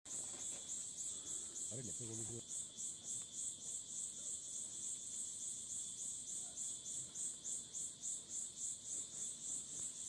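Insects calling: a steady high-pitched chorus that pulses evenly, about three times a second.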